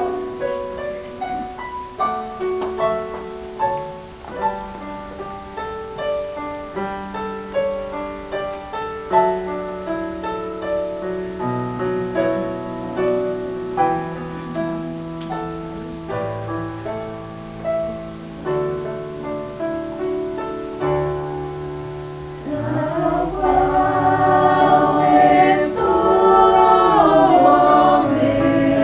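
Solo piano playing an introduction of steady, evenly spaced notes. About three-quarters of the way in, a small mixed choir comes in singing with the piano, and the sound grows louder.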